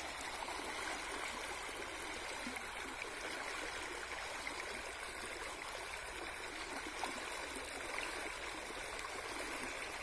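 Shallow stream running fast over a riffle, a steady rushing, babbling water sound.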